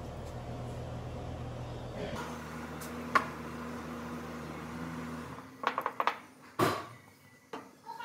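Clicks and knocks of a glass jar of caliper lubricant and small metal slide pins being handled and set down on a workbench, over a steady shop hum that drops away about two-thirds of the way through. One sharp click about three seconds in, then a cluster of knocks near the end, the loudest among them.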